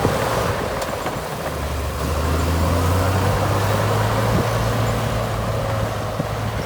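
Heavy diesel engine of earthmoving equipment running steadily. About a second and a half in its note deepens and grows a little louder, as if it is taking load.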